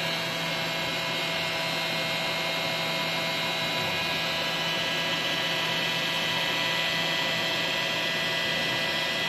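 Heat gun running steadily, a constant motor hum and whine over a rush of blown air, shrinking heat-shrink tubing onto a braided-hose fitting.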